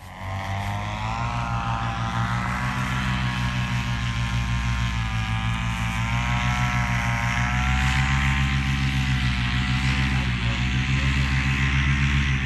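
Paramotor engine and propeller running steadily. It comes in suddenly, and its pitch wavers slightly as the throttle varies.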